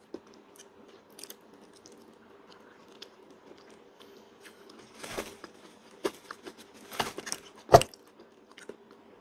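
Close-up mouth sounds of a person eating soft durian flesh: quiet chewing and small wet clicks, with a few louder smacks in the second half, the sharpest about three-quarters of the way through.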